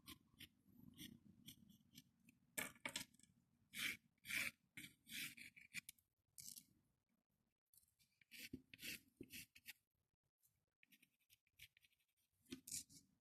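Cardboard squeaking and scratching under a drawing tool, in short, irregular strokes with pauses between them.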